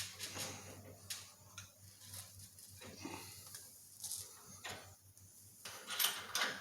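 Faint, scattered clicks and rustling from handling tools and a pressure-washer hose's quick connect fitting, over a low steady hum.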